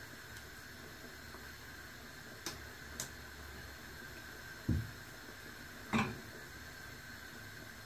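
Low steady hiss of a lit gas burner under a small pan of heating ghee, with four light knocks and clinks of a spoon and steel utensils, the loudest two about five and six seconds in.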